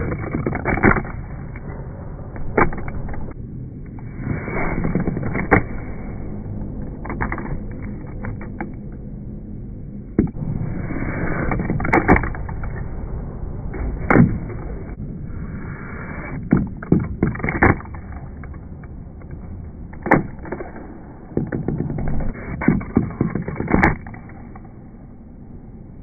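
Small plastic Box Boarders toy skater figures flicked by hand, clattering and knocking on a laminate tabletop as they land and tumble, in irregular sharp clicks.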